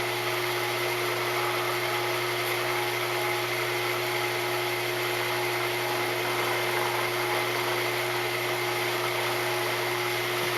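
Wood lathe running steadily at speed, a constant hum with a high whine, spinning a hardwood spice grinder while beeswax is pressed on as a friction finish.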